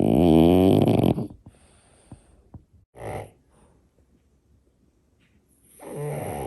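French bulldog snoring, harder than a person snores: a loud, long pitched snore at the start, a short snort about three seconds in, and another, quieter snore near the end.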